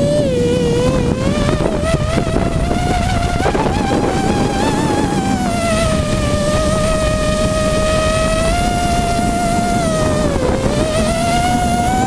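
Hexacopter's Robbe 2216 brushless motors and propellers whining in flight, the pitch rising and falling with the throttle and holding steady for a few seconds in the middle. Under the whine is the rush of wind and propeller wash on the onboard camera's microphone.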